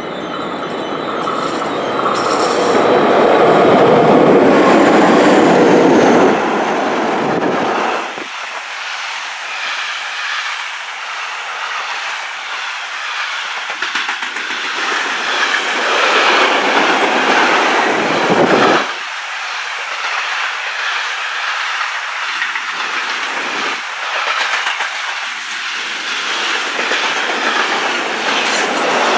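A Swiss double-deck passenger train runs past on a far platform track, loudest a few seconds in. About eight seconds in the sound changes to a container freight train rolling past close by, its wheels running steadily over the rails.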